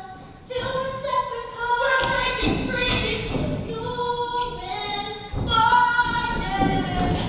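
Female voices singing a cappella, in drawn-out sung notes with no instruments. Low thuds and rumble come in underneath about two seconds in and again past five seconds.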